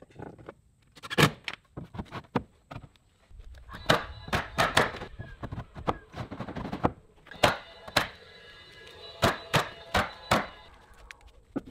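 DeWalt battery-powered roofing coil nailer driving nails into stone siding panels, a string of sharp shots with four in quick succession near the end, with knocks of the panels being set in place earlier on.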